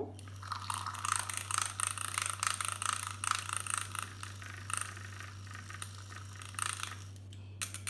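Battery-powered handheld milk frother whirring with a fast, rattling buzz as its wire whisk spins in a glass beaker of water, dissolving hyaluronic acid powder. It stops about a second before the end, followed by a couple of light clicks.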